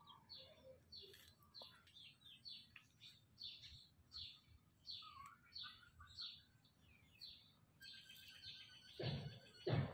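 Small birds chirping over and over, short falling chirps about twice a second. Two louder thumps come near the end.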